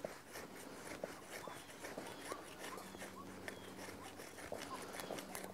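Faint, irregular scraping and clicking of a Smith & Wesson pocket knife blade shaving slivers off a stick of fatwood for tinder.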